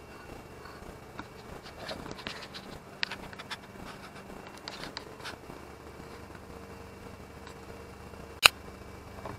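Faint scattered clicks and taps over a steady low hum, with a single sharp click near the end.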